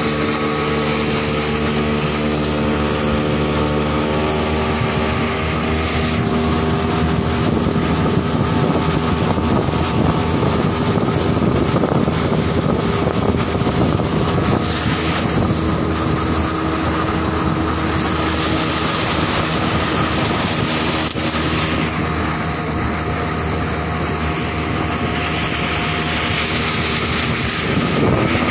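A motorboat's engine running steadily at speed, with water rushing and splashing past the hull and wind over the microphone. The engine note drops slightly a few seconds in and again about halfway through.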